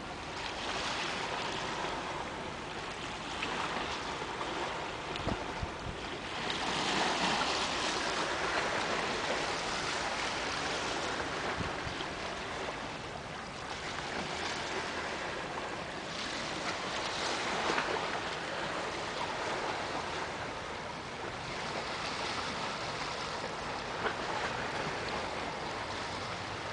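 Small waves washing against a rocky shore, a steady hiss of water that swells louder every few seconds.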